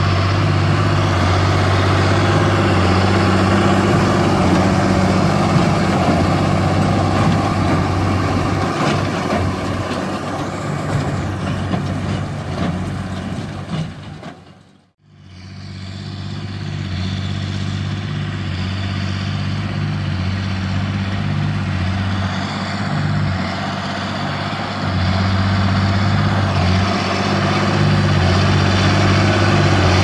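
John Deere 8410's 8.1-litre six-cylinder turbocharged diesel running steadily under load while it pulls a New Holland BigBaler 9080 large square baler through hay, the baler's machinery working behind it. The sound fades out briefly about halfway through, then comes back.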